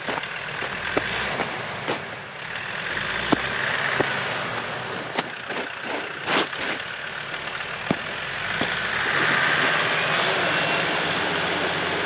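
Car engine running while the car manoeuvres, with a hiss that swells twice and scattered clicks and crackles from the tyres on a rough road surface.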